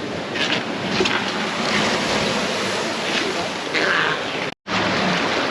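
Steady rush of wind and surf, with the wind buffeting the microphone. The sound drops out completely for a moment near the end.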